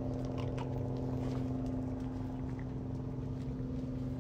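Light scattered footsteps on pavement over a steady low mechanical hum.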